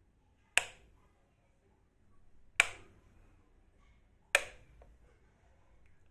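A switch being clicked on, three sharp clicks about two seconds apart, with a fourth right at the end.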